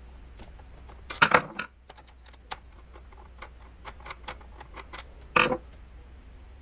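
Large Phillips-head screwdriver working out the screw behind the trigger guard of an airsoft VSR-10 rifle: a run of small irregular clicks and ticks. There is a sharper clatter about a second in and another sharp click near the end.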